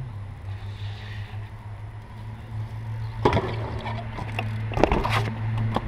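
BMX bike doing a peg trick on a concrete skatepark ledge: sharp knocks of the wheels and pegs striking the concrete about three seconds in and again several times around five seconds in, over a steady low hum.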